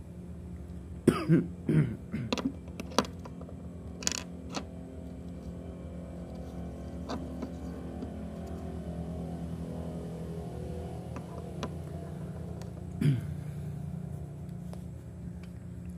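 Small parts of a disassembled Daiwa spinning reel clicking sharply as they are handled, a few times in the first seconds and once about four seconds in, over a steady low hum. Short throaty sounds come about a second in and again near the end.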